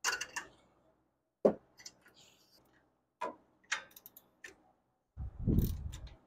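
Scattered metallic clicks and knocks of a socket and breaker bar on the upper ball joint nut as it is loosened and backed off, with a sharper knock about one and a half seconds in and a low rubbing rumble near the end.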